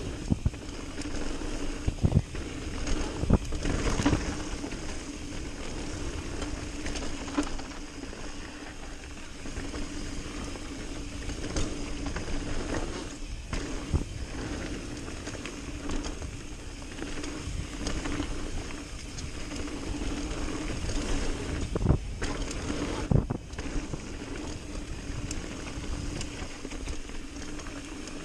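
Mountain bike rolling down a dirt trail: steady tyre and rolling noise under a low hum, with sharp knocks and rattles as the bike hits bumps, clustered a few seconds in and again about three-quarters of the way through.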